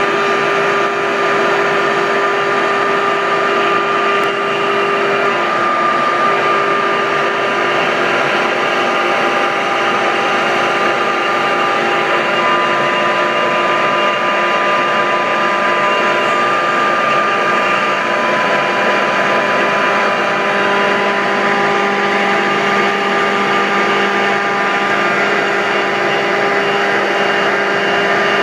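Techno Isel three-axis CNC router running: a loud, steady mechanical whine with several held tones over a broad hiss.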